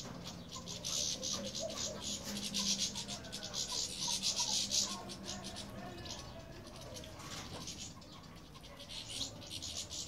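European goldfinches splashing in a shallow water basin as they bathe, in repeated bursts of quick wing-flicking splashes that ease off in the second half and pick up again near the end. Faint bird calls run underneath.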